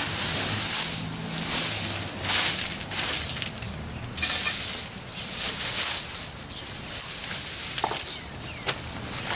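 A rake scratching through dry leaves and yard debris in repeated strokes, about one a second.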